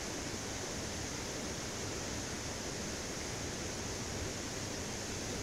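Steady rushing of a mountain stream, an even hiss with no break or change.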